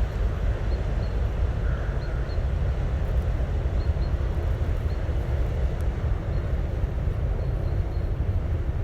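Steady low rumble of a passing cargo ship's engine, with a few faint short high chirps above it.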